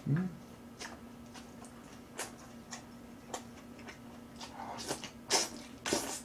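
Close-miked mouth sounds of a person eating kimchi and boiled pork: wet chewing and lip smacks as a scatter of soft clicks, a few louder ones near the end, over a steady low hum.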